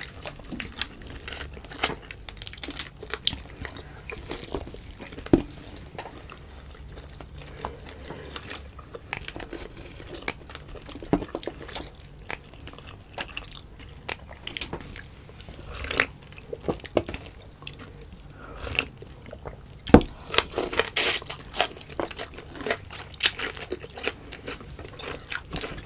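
Close-up eating sounds: irregular chewing, biting and mouth clicks of someone eating boiled food, with a few sharper clicks now and then.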